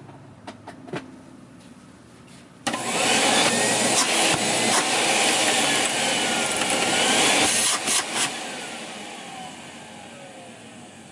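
Miele S514 (S500-series) canister vacuum switched on after a few handling clicks, its suction motor running loud for about five seconds, then switched off and winding down with a falling whine. There is a little motor noise, normal for a vacuum of this age.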